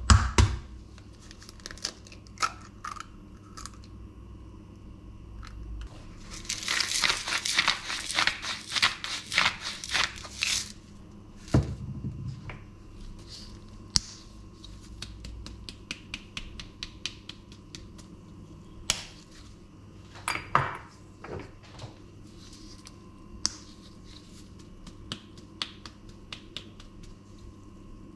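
Kitchen handling sounds over a stainless steel bowl of grated potato: a sharp knock at the start, a few seconds of dense crackling and crinkling, a thump, then a long run of small dry clicks from a hand-twisted glass pepper grinder through the second half.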